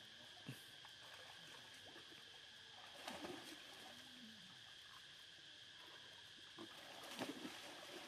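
Faint, soft splashing and sloshing of pool water as macaques move about in it, over a steady high hum. One short low call rises and falls about four seconds in.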